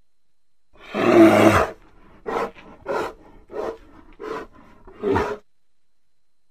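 A bear roars once, loud and lasting about a second. It then gives five short calls about two-thirds of a second apart, and these stop a little over five seconds in.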